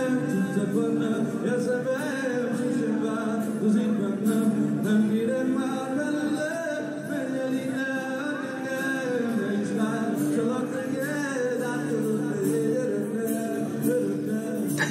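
Live acoustic performance: a man singing with acoustic guitar accompaniment, the melody sustained and continuous throughout.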